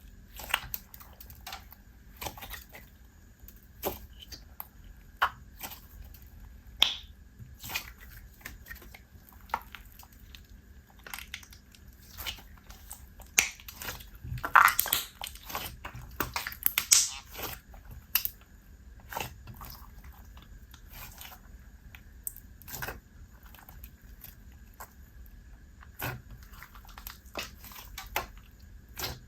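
Slime with puffy plastic bee add-ins being squeezed and poked by hand, making irregular clicks, pops and crackles, with a denser run of them about halfway through.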